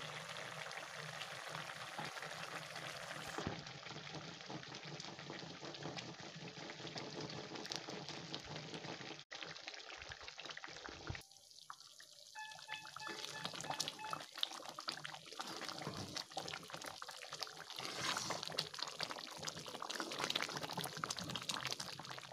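Food simmering in liquid in an iron kadai over a gas flame: a steady bubbling hiss with fine crackle, which breaks off briefly about nine seconds in and again about eleven seconds in.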